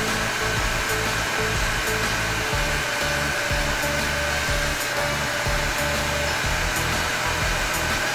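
Toy hair dryer running: a steady blowing hiss with a thin, constant whine.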